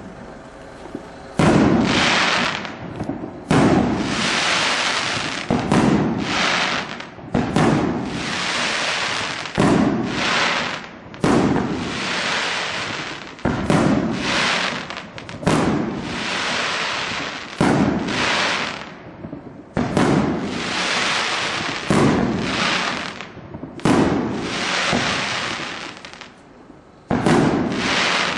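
Black Boxx 'Swoosh' firework battery (article 49005) firing shot after shot, about one every second or two. Each shot goes off with a sudden thud followed by a long hiss that fades away.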